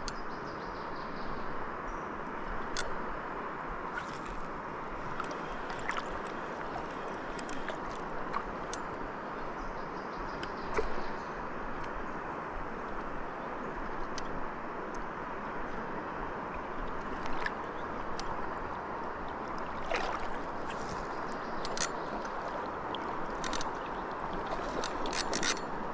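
Steady rush of flowing river water, with scattered light clicks now and then.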